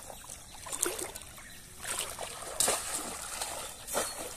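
Pond water splashing and sloshing in several separate splashes as people wade through the shallows working bamboo polo fishing traps.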